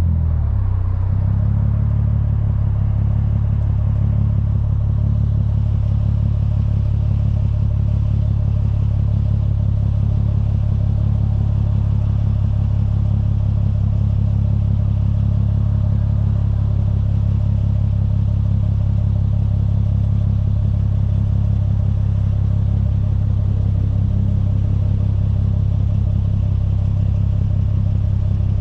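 Lexus IS350's 3.5-litre V6 heard at the tip of an HKS Hi Power cat-back exhaust with an Invidia mid-pipe, idling with a steady deep drone. The note drops and settles in the first second or so as the car comes to a stop.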